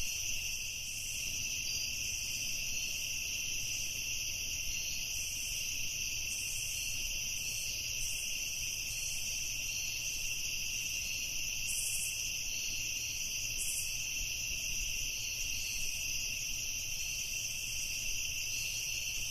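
Night chorus of crickets chirping, a steady, unbroken high-pitched trill.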